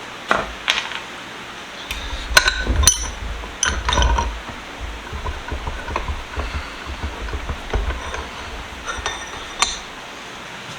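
Metal parts of a disassembled bench vise being handled and set down: a series of scattered clinks and knocks with a short metallic ring, with low handling rumble through the middle.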